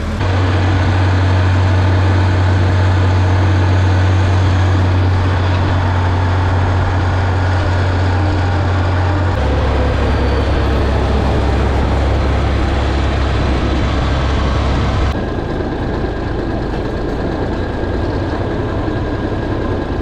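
Massey Ferguson tractor engine running steadily with a deep drone, its note stepping down about nine seconds in.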